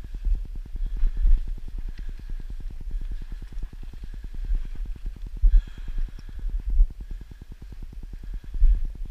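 Low, uneven rumbling and bumping from a body-worn action camera's microphone as the wearer wades through deep snow, with loud gusty swells now and then.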